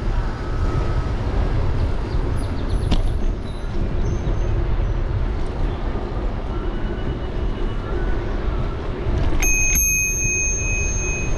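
Bicycle bell rung twice in quick succession near the end, its ring lingering, over a steady low rush of wind and tyre noise from riding a bicycle.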